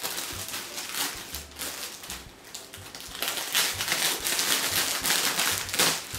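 Clear plastic packaging crinkling and rustling in a rapid crackle as it is handled and opened, getting louder about three seconds in.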